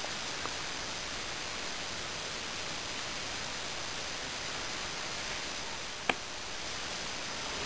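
Steady, even hiss of background noise with no machine running, broken once by a single sharp click about six seconds in.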